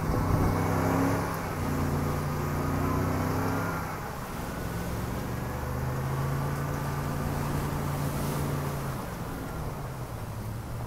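Ford F-250 pickup engine revving under load in soft beach sand, its wheels spinning and throwing sand as it is towed out. The engine holds a steady note for about four seconds, eases off, rises again for a few seconds and eases near the end.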